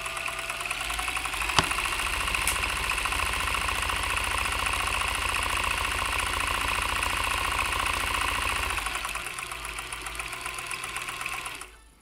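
Janome Combi DX 502 combination sewing machine running on its overlock (serger) side, stitching a fabric edge at speed. It picks up over the first couple of seconds, with one sharp click about one and a half seconds in, eases off a little later and stops just before the end.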